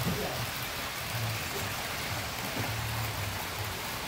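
Brass HO-gauge model train running on metal track, a steady rushing rolling noise of wheels on rail with a low hum underneath.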